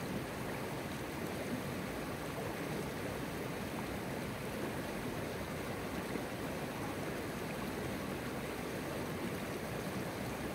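River water flowing steadily: an even, constant rush with no breaks or changes.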